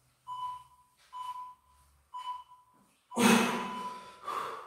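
Interval timer counting down the end of a work set: three short beeps about a second apart, then a longer final beep. A man's heavy exhale after the exercise comes with the final beep and is the loudest sound.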